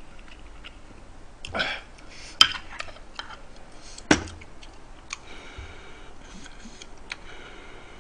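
Eating at a table: a few short, sharp clicks of a metal spoon and chopsticks against an earthenware ttukbaegi pot, the loudest about four seconds in, with faint mouth sounds of eating between.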